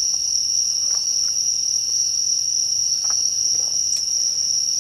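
Steady, shrill chorus of night insects, one high unbroken trill that holds level throughout.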